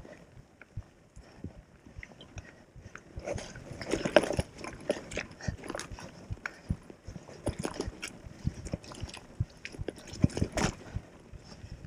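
Gravel bike tyres crunching over loose rocks and dirt on a rough climb, with irregular clicks and knocks as the bike jolts. The loudest jolts come about four seconds in and near the end.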